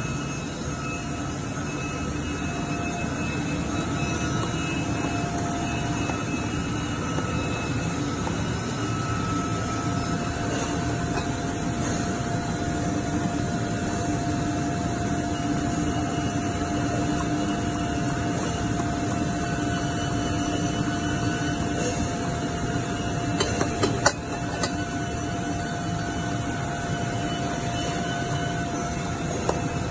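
Steady mechanical noise of workshop machinery: a constant hum and whir with a few steady tones running through it. A short cluster of sharp clicks comes about 24 seconds in.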